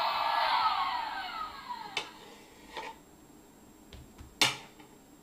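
A toy handheld vacuum's sound dies away with falling pitch over the first two seconds. Then come a few sharp knocks, the loudest just after four seconds in: a wooden spatula striking a tile floor.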